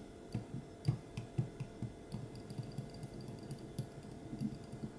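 A miniature wire whisk clicking against a small glass bowl in quick, irregular strokes as it beats an egg mixture, with soft low taps among the clicks.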